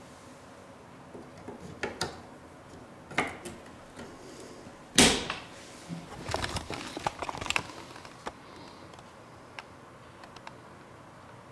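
Clicks and knocks of computer parts being handled on a hard tabletop. The loudest knock comes about halfway through, followed by a quick flurry of clatter and then a few faint ticks.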